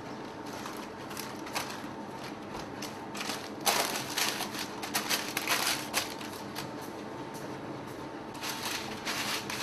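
Baking paper crinkling and rustling as hands press pastry dough into a paper-lined metal baking tray, in irregular crackles that are loudest from about four to six seconds in and again near the end.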